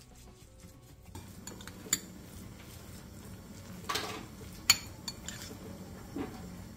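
Metal spoon stirring a thick seasoning paste in a small ceramic bowl: soft scraping broken by a few sharp clinks of spoon on bowl, the loudest a little before five seconds in.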